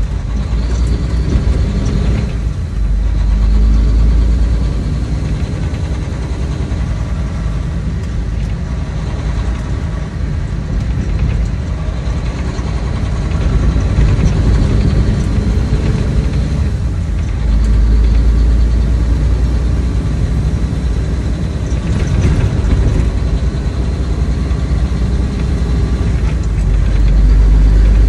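Truck engine and road noise, a steady low rumble that swells louder a few times.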